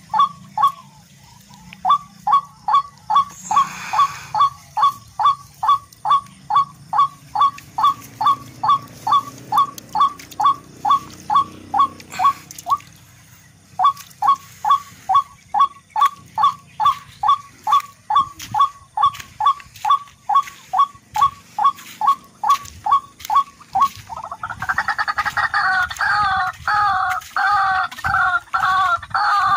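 Tikling (rail) calls repeated about three times a second, with two short breaks. About three-quarters of the way through they give way to faster, busier calling.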